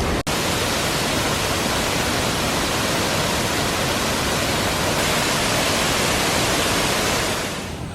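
Waterfall rushing, a steady, loud roar of falling water. It cuts out for an instant about a quarter second in and fades away near the end.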